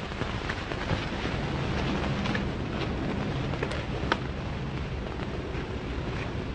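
Steady hiss and low hum with scattered sharp clicks and pops: the surface noise of an old 1940 newsreel soundtrack.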